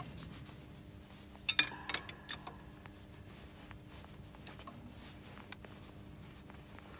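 Metal tool work on a forklift bolt being tightened with a long-shafted socket tool: rubbing and scraping, with a short burst of sharp metallic clicks about a second and a half in, then a few scattered light clicks.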